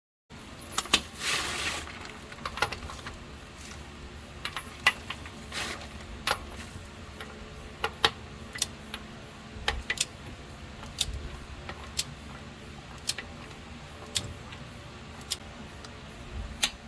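Sharp metallic clicks and clinks, roughly one a second and unevenly spaced, from a socket wrench on a 27 mm deep socket tightening an aluminium oil filter adapter down to torque, with a short scraping rattle near the start.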